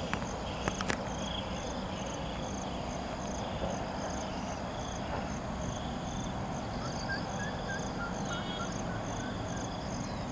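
Outdoor ambience of insects trilling steadily in high repeated pulses, about two a second, with a bird chirping in short notes in the second half. A couple of sharp clicks sound right at the start.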